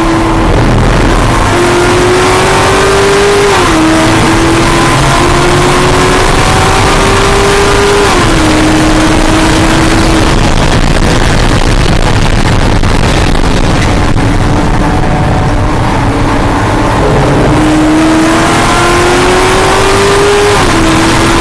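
Cadillac CTS-V race car's V8 engine heard from inside the cockpit at full throttle, its pitch climbing steadily and dropping sharply at upshifts, once a few seconds in, again about a third of the way through, and at the end. The engine eases off in the middle, under a constant rush of road and wind noise.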